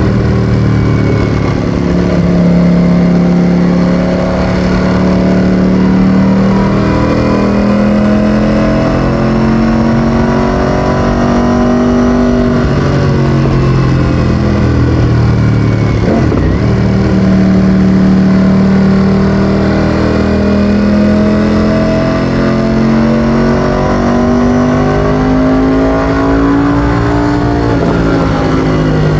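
Ducati Streetfighter V4S's 1103 cc Desmosedici Stradale V4 engine with an Akrapovič exhaust, running under way. The revs rise and fall slowly, with one brief sharp dip about halfway through.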